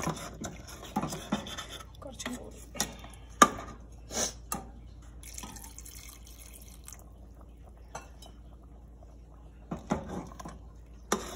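A metal spoon clinking and scraping against a stainless steel pot as chicken stew is stirred. About five and a half seconds in, thin second-extract coconut milk pours into the stew for a second or two, and a few more stirring clinks follow near the end.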